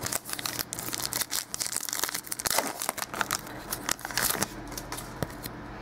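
2013 Topps Archives football trading cards being handled by hand, with the pack wrapper crinkling and the cards sliding and flicking against each other in many small irregular clicks and rustles.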